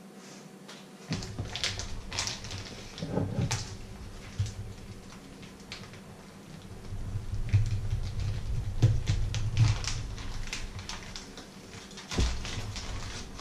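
Plastic sausage packaging crinkling and rustling as it is handled and cut open with a knife, with irregular clicks and a few dull knocks against the wooden worktop.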